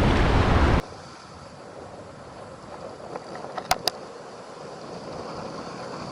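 Wind buffeting the microphone loudly, cutting off abruptly under a second in to a quieter, steady rush of wind and surf. Two quick sharp clicks a little over halfway through.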